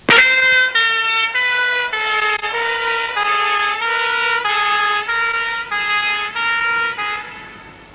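Fire engine's two-tone siren, switching back and forth between a higher and a lower note, each held a little over half a second. It starts abruptly and fades away near the end.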